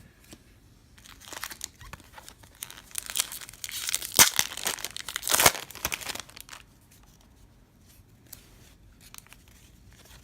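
A 1998 Fleer Ultra baseball card pack wrapper being torn open and crinkled, building from about a second in and loudest in the middle, then dying away into a few light clicks of cards being handled.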